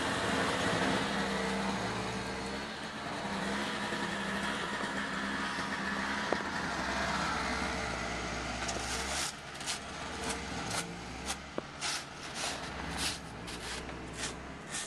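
An engine runs steadily in the background. From about nine seconds in, boots crunch through deep snow in quick steps, about two or three a second.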